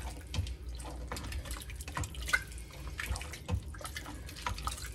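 Wet sloshing with irregular clinks and scrapes of a spoon working beans and tomatoes around in the Instant Pot's stainless steel inner pot.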